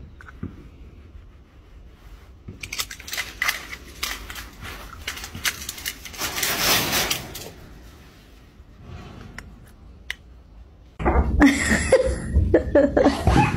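Faint clicks and crunching, with a denser burst of scratchy noise around six to seven seconds in. Then, about eleven seconds in, a dog suddenly starts growling and yipping loudly.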